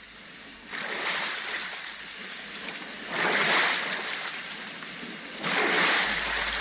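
Sea waves breaking on the shore: three rushes of surf in turn, each starting suddenly and fading before the next.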